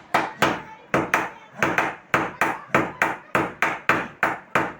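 Blacksmith's hammer blows on metal during forging of a hatchet, struck in a fast, steady rhythm of about three to four blows a second, each with a short ring.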